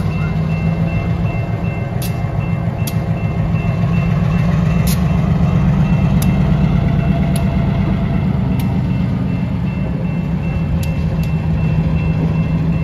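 Diesel switcher locomotive's engine running as it moves a gondola through a grade crossing: a steady low drone that swells in the middle as the locomotive passes closest, then eases off. Sharp clicks come now and then.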